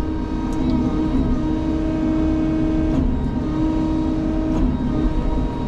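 Diesel engine of a Sany tracked excavator running steadily under working load, with a held tone that drops a little in pitch about three seconds in.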